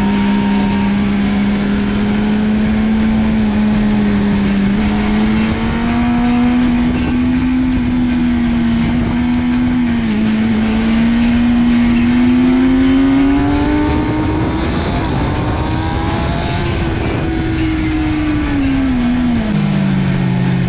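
Sportbike's inline-four engine heard onboard under heavy wind rush, holding a steady pitch, then climbing slowly as it pulls through the rev range to a peak about three-quarters of the way in, and dropping away near the end as the bike slows. Rock music with a steady beat plays faintly over it.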